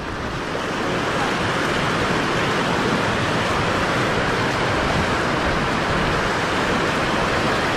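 Water rushing steadily over a low concrete weir, an even, unbroken hiss.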